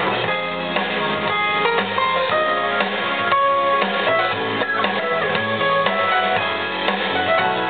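Instrumental music with guitar and drums, played back through homemade vented speakers with 5¼-inch woofers and 1-inch tweeters, driven by a small stereo block amplifier.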